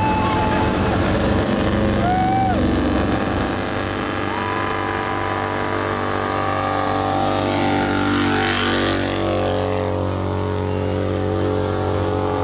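Motorcycle engine running hard at fairly steady revs during a burnout.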